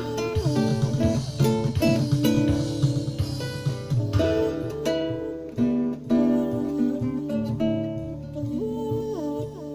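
Acoustic guitar playing a slow blues instrumental: picked single notes, some sliding in pitch, over repeating low bass notes.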